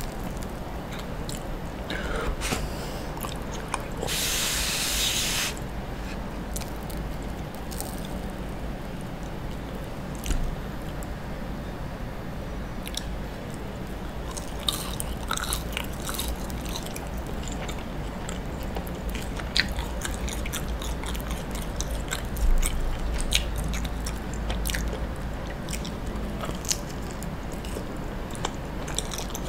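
Close-miked chewing and biting of grilled mochi with its scorched crust: sticky, wet mouth sounds and many small clicks and crackles. About four seconds in there is a hiss lasting a second or so.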